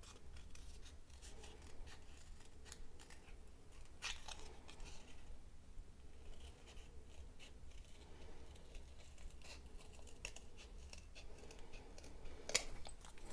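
Scissors snipping through stiff white cardboard: a run of short, faint cuts, with a sharper snip near the end.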